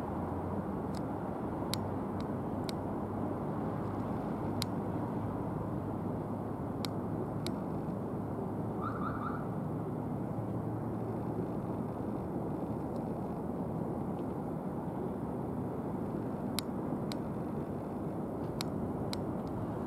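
Steady low rumble of an Airbus A319-111's CFM56 jet engines on final approach, with scattered sharp clicks and a brief chirp of four quick notes about nine seconds in.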